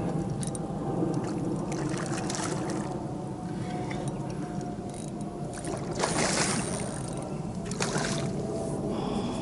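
A hooked fish splashing and thrashing at the water's surface as it is played on a rod, with the loudest splashes about six seconds in and again near eight seconds, over a steady low rumble.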